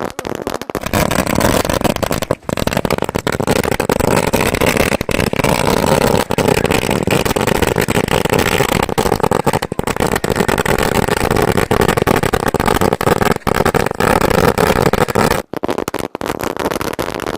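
Long string of Diwali firecrackers (a 10,000-cracker ladi) bursting in a dense, continuous rapid-fire crackle, with brief gaps about two seconds in and near the end.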